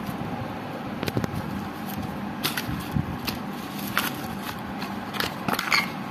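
Scattered light clicks and taps from a small cardboard box of firecrackers being handled and pushed across a tile floor, over a steady background hum.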